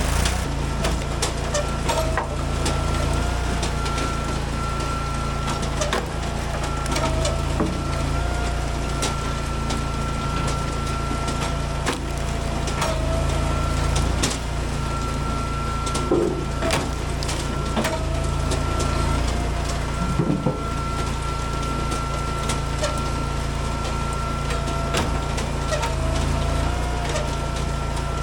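Eastonmade AXIS hydraulic wood splitter running steadily with a constant whine while firewood rounds crack and split, with many sharp cracks and knocks of wood.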